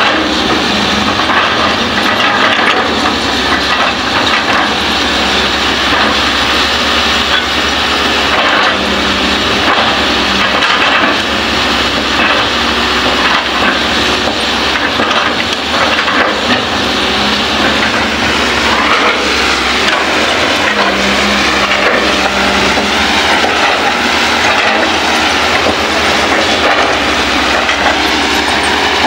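Hydraulic excavators at work, the nearer Kobelco's diesel engine running under load as its bucket digs and scrapes into loose soil. A continuous, loud mix of engine noise and rapid clattering and crunching.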